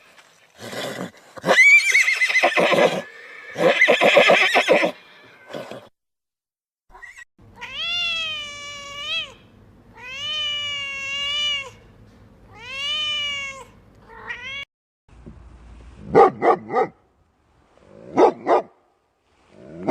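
A series of animal calls in turn: two loud, rough calls in the first five seconds, three long calls that rise and fall in pitch in the middle, then a few short barks near the end.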